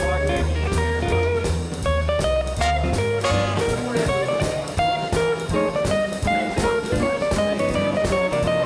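Background music: guitar over a bass line with a steady drum beat.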